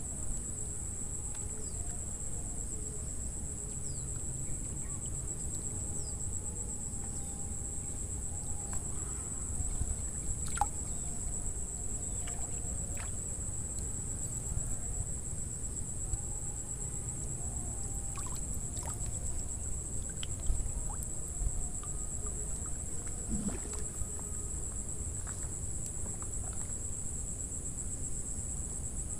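Steady high-pitched insect chorus trilling without a break, over a low rumble, with a few faint clicks and short chirps.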